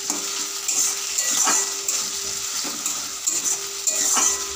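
Onions, potato pieces and ginger-garlic paste sizzling in hot oil in an aluminium kadai, with a metal spatula scraping against the pan in several stirring strokes.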